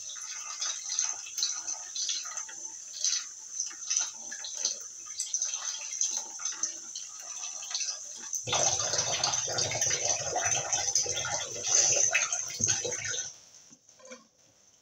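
Water running and splashing in a kitchen sink, with small clatters of things being handled in it. About eight seconds in the flow turns into a fuller, louder rush for some five seconds, then stops suddenly.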